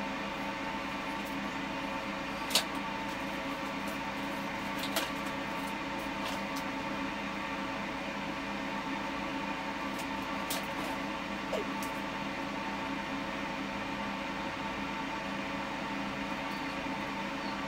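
Steady machine hum made of several constant tones, with a few light sharp clicks, the loudest about two and a half seconds in and others near five, ten and a half and eleven and a half seconds.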